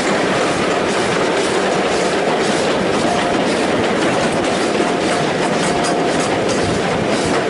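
Heritage passenger train running along the line, heard from on board: a steady rumble of carriage wheels on the track with the clickety-clack of rail joints. A faint thin tone comes and goes twice.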